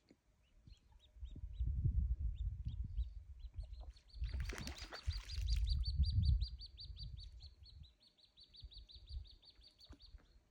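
A small songbird calling: scattered single high chirps, then from about four seconds in a fast, even run of repeated chirps, about eight a second. Underneath, a low rumble swells and fades twice, and is the loudest thing heard.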